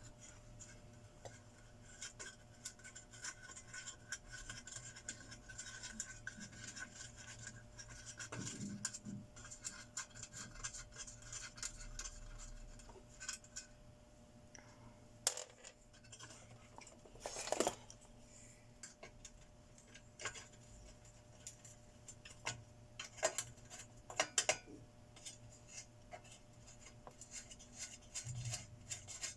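Faint scraping and scattered clicks of metal parts and tools being handled while an inverter welding machine is worked on. A few sharper taps and knocks come in the second half.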